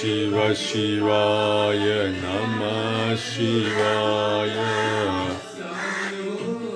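Devotional bhajan and mantra chanting by a group of voices, relayed from a live prayer session and played back, with long held sung notes over a steady low drone; the drone drops out about five and a half seconds in.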